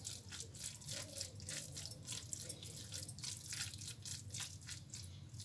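Silicone spatula stirring a wet mix of shredded chicken, carrot and béchamel sauce in a glass baking dish: a faint, irregular run of wet clicks and squelches, several a second.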